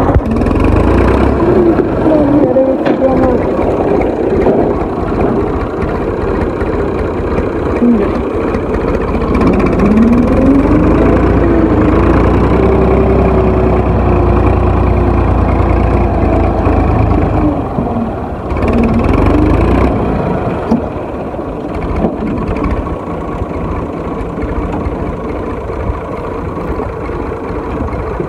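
Farm tractor's diesel engine running as the tractor is driven along a dirt track, its note rising and falling several times with the throttle.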